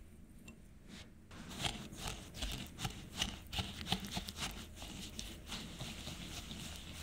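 Silicone-coated balloon whisk beating eggs, sugar, yogurt and oil in a glass bowl: a run of quick wet strokes, about two or three a second, starting about a second in.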